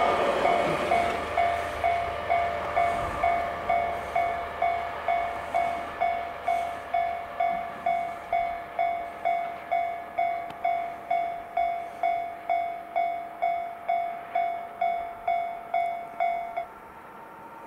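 Japanese railway level-crossing alarm bell ringing steadily, a little over two dings a second, then cutting off suddenly near the end as the crossing clears. Under it, the rumble of the passing DE15 diesel locomotive and its Russell snowplow cars fades away over the first seconds.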